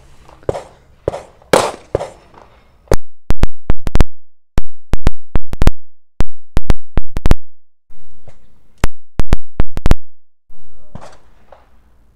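A Taurus G2C 9mm pistol firing quick strings of several shots each, beginning about three seconds in. These are its first rounds after a broken ejector was repaired under warranty, and it cycles fine.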